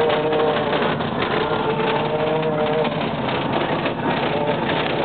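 Canoe tie-down straps on a car's roof rack vibrating in the wind at road speed, a loud droning hum whose pitch wavers and drops out briefly about three seconds in, over road and wind noise heard inside the car.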